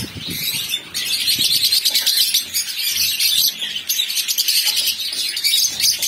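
A cage of lutino Fischer's lovebirds chattering: a dense, continuous stream of rapid high-pitched chirps from many birds at once, building up about a second in.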